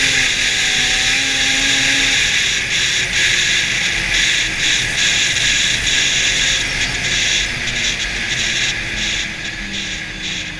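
2014 Arctic Cat El Tigre 6000 snowmobile's two-stroke engine running at speed across snow, mostly buried under a loud steady hiss of wind and track noise, with the engine's tone faintly audible beneath. The whole sound eases off somewhat in the last couple of seconds.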